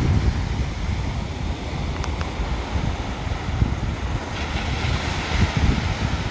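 Ocean surf washing onto the shore, with gusty wind rumbling on the microphone; the wash of a wave swells up about four seconds in.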